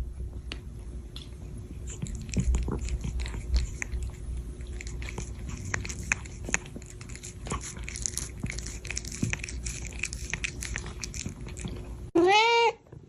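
A cat chewing, a run of quick irregular crunching clicks, then one loud meow near the end.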